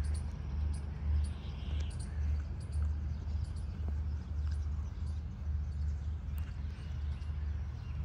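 Outdoor garden ambience: birds chirping in short high calls over a constant low rumble that swells and fades.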